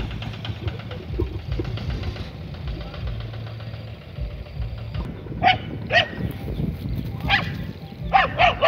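A dog barking in short, sharp barks, starting a little over halfway through and coming in a quicker run near the end, over a low rumble of wind on the microphone.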